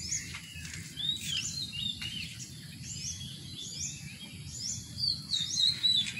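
Songbirds chirping: many short, high whistled notes that repeat throughout and come thicker near the end, over a steady low background rumble.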